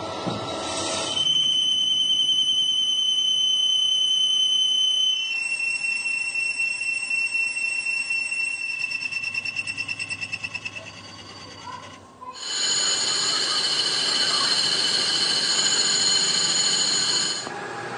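CNC lathe turning a tractor differential case, the cutting tool squealing against the metal with a steady high-pitched whine. The pitch and loudness change abruptly a few times. The whine pulses rapidly for a few seconds in the middle, dips briefly, then returns louder and higher.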